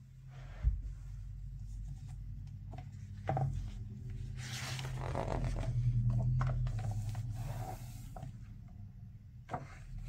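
A page of a hardcover picture book being turned and smoothed flat by a gloved hand: paper rustling and sliding, loudest around the middle, with a soft knock about a second in and another a few seconds later.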